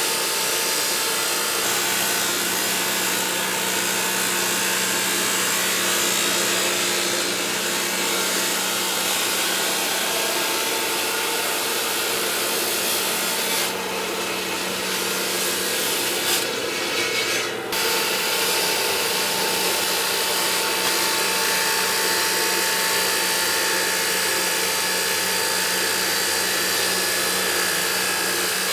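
Marble-processing machinery running: a steady, dense grinding noise over a constant hum, with two short dips in the high end about halfway through.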